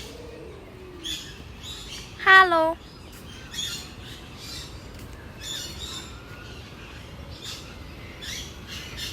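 Birds in an aviary giving short, high chirps and squawks at irregular intervals over a steady low background noise.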